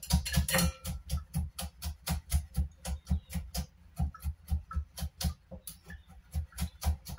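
Cleaver chopping garlic and fermented black beans on a wooden chopping board: rapid, even chops, about five a second, each a sharp knock of the blade into the wood.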